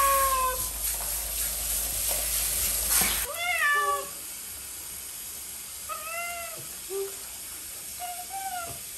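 Orange-and-white cat meowing during a shower bath: a falling meow at the start, then several short meows. Shower spray hisses steadily for the first three seconds and cuts off abruptly.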